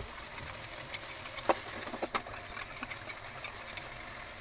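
A steel spatula scraping and knocking against a pan as turmeric and coriander powder are stirred into masala paste frying in oil, with a steady sizzle under it. Sharp clicks of the spatula hitting the pan stand out about one and a half and two seconds in.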